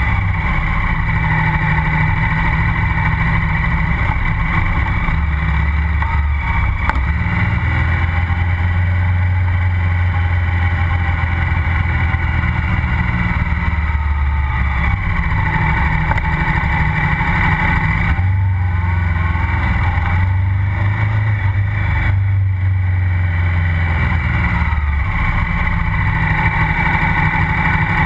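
KTM 990 SMR's V-twin engine, heard close up at the exhaust, running under way. Its note steps up and down in pitch several times as the throttle opens and closes, with a few brief rising revs in the middle.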